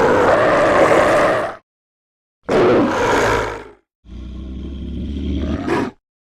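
Demon roar sound effects, three in a row with short silent gaps: a long, loud roar dying out about a second and a half in, a shorter roar a second later, then a lower, rumbling growl that builds and ends in a sharp rising cry.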